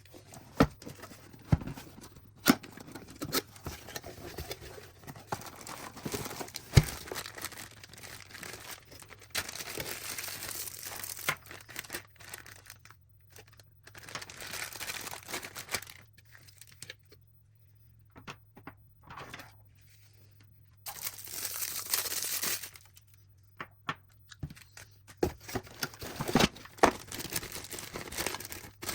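Packaging being handled: crinkling and tearing in several stretches of a second or two, separated by quiet gaps, with scattered sharp clicks and light knocks of small objects being picked up and set down.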